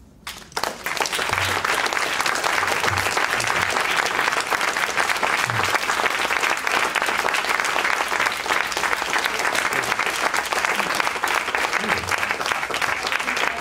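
Audience applauding: dense clapping that starts about half a second in, swells to full within a second and stays steady.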